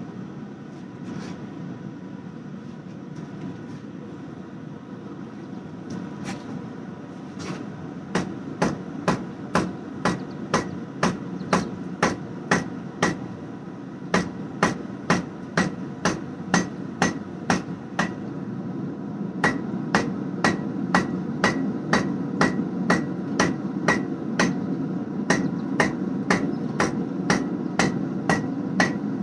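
Hand hammer striking a hot damascus steel bar on an anvil to round over its square corners before twisting: a few scattered blows at first, then steady ringing strikes about two a second, with a short pause about two-thirds of the way in. A steady low roar runs underneath.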